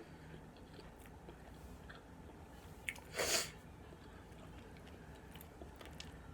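Close-up mouth sounds of a person chewing pizza: faint wet clicks and smacks, with one short, louder noisy burst about three seconds in.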